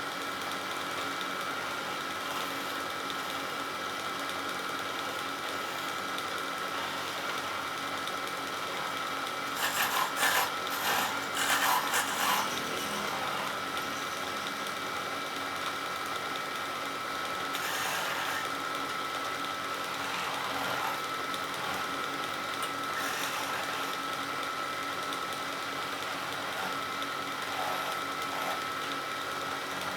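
Wood lathe running with a steady whine while a turning tool cuts the spinning wood: one louder burst of cutting lasts about three seconds, starting about a third of the way in, and shorter, lighter cuts follow later.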